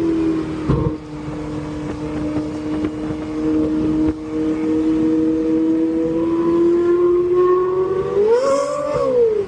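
Ferrari 458 Italia's naturally aspirated 4.5-litre V8 held at steady raised revs, then blipped quickly up and back down near the end.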